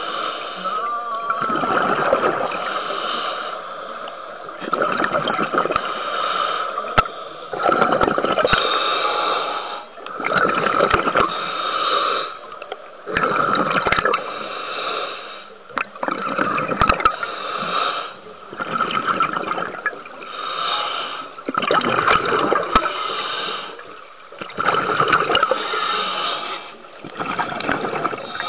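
Scuba diver breathing through a regulator underwater, heard muffled through the camera housing: a rush of air roughly every two to three seconds, with exhaled bubbles gurgling.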